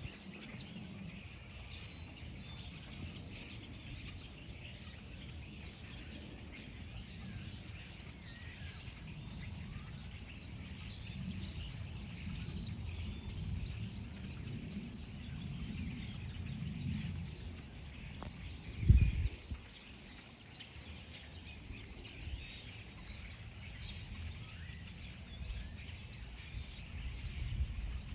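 Many small birds chirping: a dense, overlapping chatter of short high chirps throughout, over a steady low rumble. A brief low thump about two-thirds of the way through is the loudest sound.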